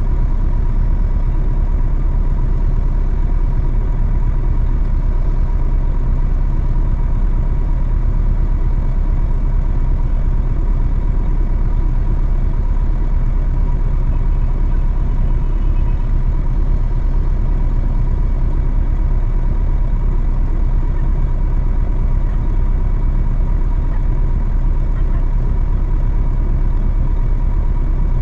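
Heavy truck engine running steadily: a constant low drone with a thin, steady whine above it, with no change in engine speed.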